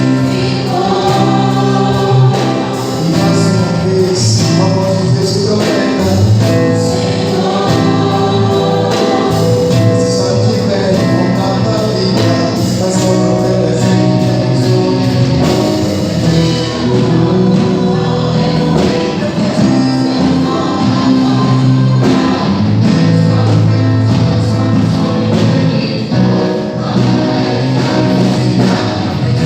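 Gospel worship song: group vocals sung over instrumental accompaniment with a steady beat.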